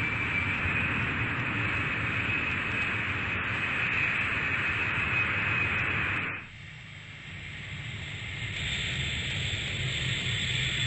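Steady hissing, rushing noise with a faint high tone in it. It cuts off suddenly about six seconds in, and a quieter noise swells back up near the end.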